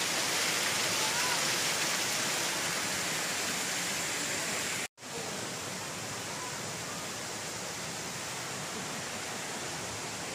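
Water cascading down an artificial rock waterfall: a steady rushing. The sound drops out abruptly for an instant about halfway through and resumes slightly quieter.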